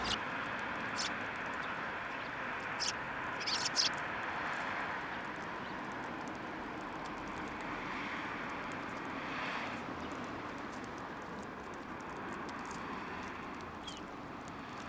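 Steady sound of passing road traffic that slowly fades, with a few short, high bird chirps near the start and one near the end.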